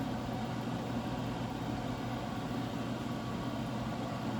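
A steady low mechanical hum, like a motor or fan running, unchanged throughout.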